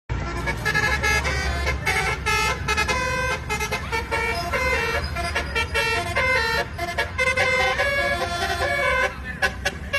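A bus's basuri 'telolet' multi-tone air horn playing a quick melody, its notes changing several times a second, over a low rumble.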